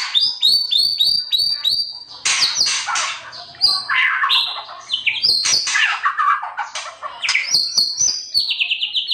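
White-rumped shama singing a fast, varied song. It opens with a run of about six short whistled notes, moves into harsh, scratchy chattering phrases, and ends with a rapid trill.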